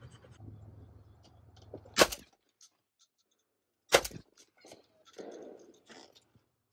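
Two shotgun shots about two seconds apart.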